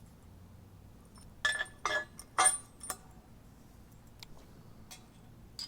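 Steel parts of a tire-mount bracket clinking together as a bolt and receiver bar are handled: about four sharp ringing clinks starting about a second and a half in, then a few faint ticks near the end.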